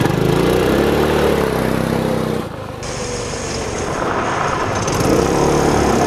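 Small go-kart gas engine in a Power Wheels Mustang revving hard as it spins the rear tires in circles on gravel. The engine note dips about halfway through, then climbs again.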